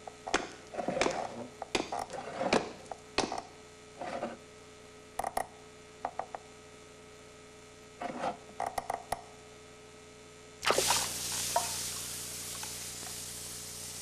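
Short knocks and clicks come in small clusters over a steady electrical hum. About ten and a half seconds in, a sudden loud hiss starts and slowly fades.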